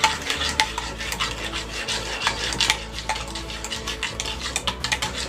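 Wire whisk beating runny chocolate cake batter with a freshly added egg in a metal bowl: wet stirring with irregular quick clicks and scrapes of the whisk against the bowl's sides.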